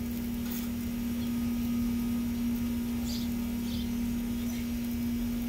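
A steady low hum, with a few short high chirps about three seconds in.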